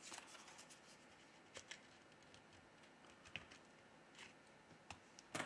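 Near silence, with a few faint, scattered light ticks from hands handling the plastic card and metal opening tool against the phone's back cover. The clearest tick comes near the end.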